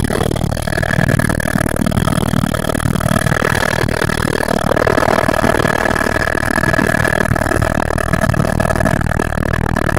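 Helicopter turbine and rotors running, heard from inside the cabin: a loud, steady drone with a constant high whine over a low rumble.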